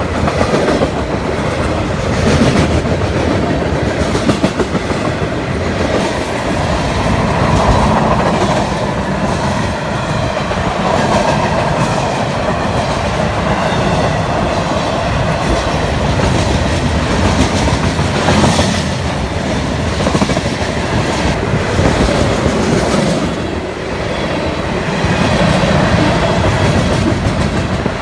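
Manifest freight train rolling past: a steady loud rumble with repeated clickety-clack of steel wheels over the rail joints.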